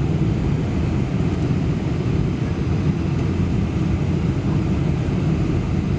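Steady low rumble of cabin noise inside a Boeing 747-400 on approach to landing: engine and airflow noise heard from a window seat over the wing.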